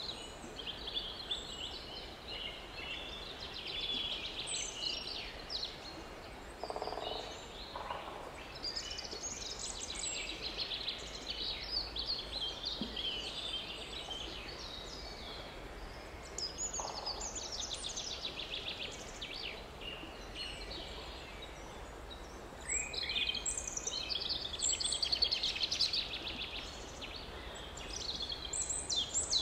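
Wild birds singing in forest, many overlapping short chirps and trills. A couple of lower calls come through about a quarter and about halfway in, and the song grows busier and louder near the end.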